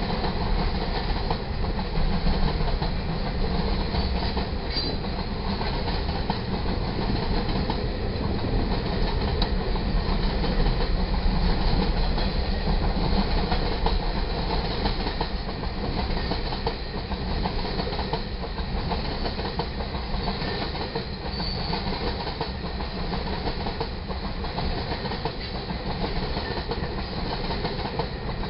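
Freight cars of a manifest train rolling past: a steady rumble and clatter of steel wheels on the rails.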